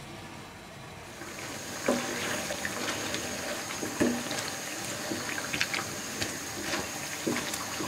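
Rice-flour pitha deep-frying in hot oil, sizzling and crackling steadily from about a second in. A nylon slotted spatula knocks against the pan three times while turning them.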